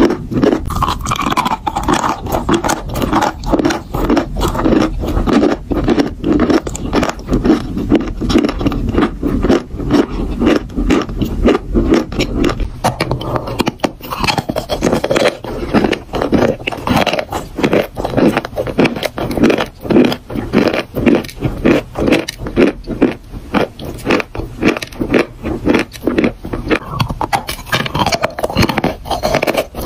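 Dry chalk being bitten and chewed close to the microphone: a dense run of sharp, dry crunches with a scraping texture, one close after another.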